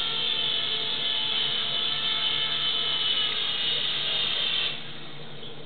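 Micro RC helicopter's small electric motors whining steadily at a high pitch, cutting out abruptly near the end.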